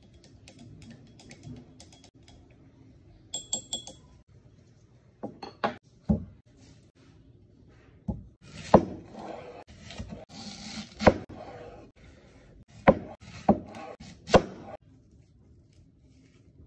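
A wooden skewer clinks briefly against a small drinking glass, which rings. Then come a series of sharp knocks on a wooden cutting board, with crackling rustles, as a white onion is handled, cut and peeled.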